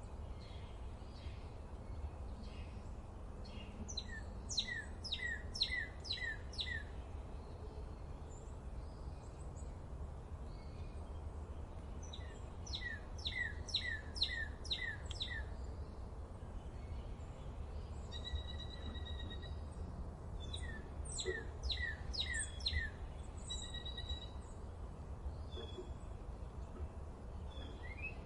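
Wild songbirds singing. One bird sings a rapid series of short falling notes, about five a second, three times, each bout lasting two to three seconds. Fainter calls from other birds come between the bouts, over a steady low rumble.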